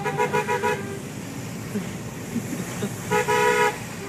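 Car horn honking: a rapid string of about five short toots, then one longer blast about three seconds in, over the steady road noise of a moving car.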